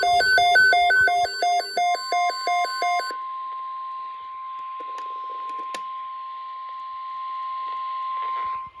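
Rapid electronic alert beeps, about four a second, stopping about three seconds in, overlapped by a single steady alert tone that starts about two seconds in and holds until just before the end: the NOAA Weather Radio 1050 Hz warning alarm tone that comes before a broadcast alert, heard over radio hiss.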